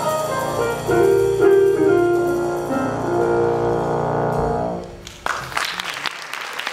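Jazz ensemble with brass and piano playing the last bars of a tune, ending on held notes that fade away near five seconds in. Audience applause then breaks out and continues.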